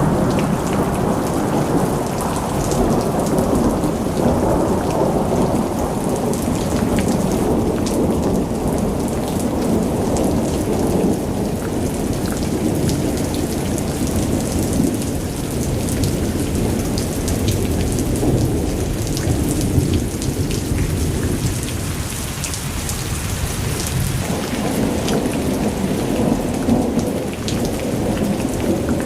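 Heavy hurricane rain pouring down with a continuous deep rumble, and a dense patter of drops hitting surfaces.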